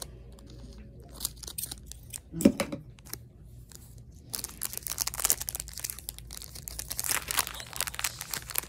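Chocolate bar wrapper being opened: a few clicks and a sharp thump about two and a half seconds in, then steady crinkling and tearing of the wrapper and its inner foil from about four seconds in.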